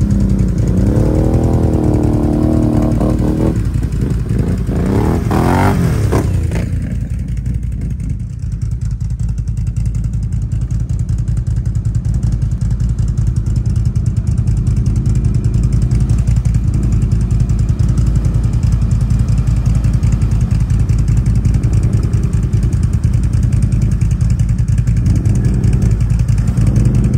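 ATV engine running under way, revving up and down in the first few seconds, then settling into a steady low drone with small rises in throttle.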